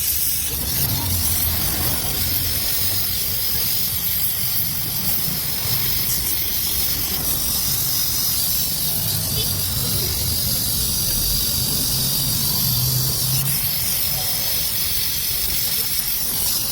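Gas welding torch flame hissing steadily, with a low rumble underneath.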